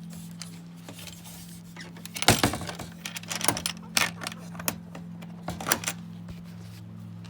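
Chicken eggs clicking and knocking against one another as they are gathered by hand, in a cluster of sharp clatters from about two seconds in to about six seconds in. A steady low hum runs underneath.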